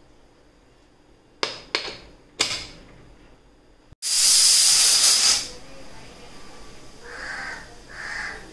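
Aluminium pressure cooker venting steam through its whistle weight, with a few short hissing puffs at first. About four seconds in comes a loud, steady blast of steam lasting about a second and a half, then softer puffs. This is the cooker's whistle, the sign that it has reached full pressure; the dal is cooked for a count of these whistles.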